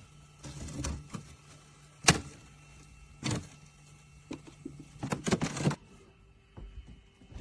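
A series of knocks and clatters, the loudest a sharp knock about two seconds in and a quick cluster near the end, over a steady low hum that cuts off suddenly shortly before the end.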